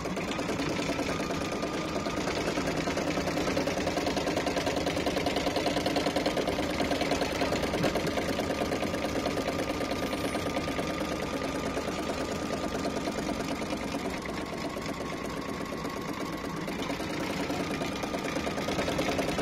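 Computerized embroidery machine stitching, a rapid steady clatter of needle strokes that eases slightly in loudness about two-thirds of the way through.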